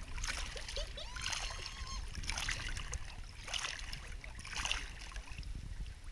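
Swimming-pool water splashing and lapping close to a waterline camera as a baby is bobbed in the water, in short splashes about once a second.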